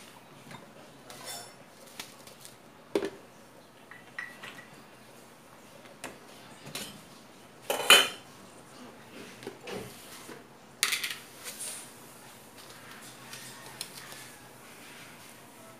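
Metal pot lid lifted off a cooking pot and set down on a gas stove top: a few sharp metal clanks, the loudest about eight seconds in, with lighter clinks between.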